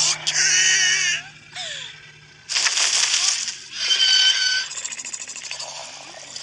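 Cartoon soundtrack: boys yell in surprise for about a second, then a loud rushing noise comes about two and a half seconds in, followed by a short high-pitched cry and a crackling rustle.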